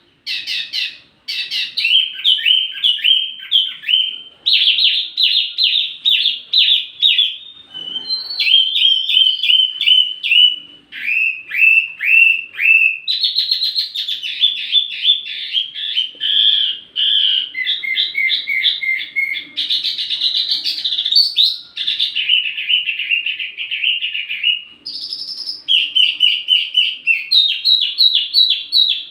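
Small songbird singing a fast, varied, high-pitched song of rapid trills and repeated chirping notes in phrases a few seconds long, with brief pauses between them: a 'wambi mini' song recording used as a lure and tutor track for training tledekan songbirds.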